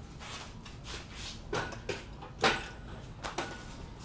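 Steel engine hoist with an engine hanging from it being pushed across a concrete floor, its frame and casters giving a few short knocks and clanks, the loudest about two and a half seconds in.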